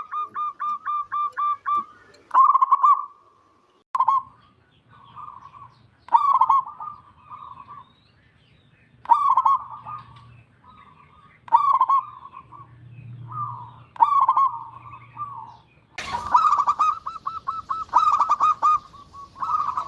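Zebra dove (perkutut) cooing: repeated phrases of quick, rapidly pulsed coos, a phrase every two to three seconds, with a longer, louder run of coos near the end.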